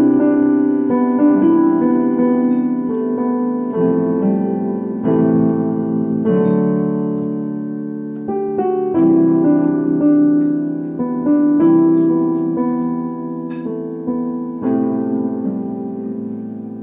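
Solo piano playing a self-composed waltz. Chords and melody notes are struck about once a second and left to ring and fade between strikes.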